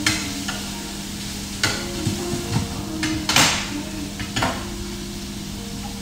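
Shrimp and wild leeks sizzling in a frying pan, with a spatula scraping and knocking against the pan as the food is stirred. The loudest scrape comes about three and a half seconds in.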